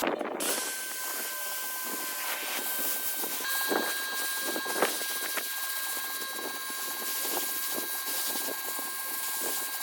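Pressure washer running and spraying water: a steady hiss of spray with a steady motor whine, a higher whine tone joining about three and a half seconds in.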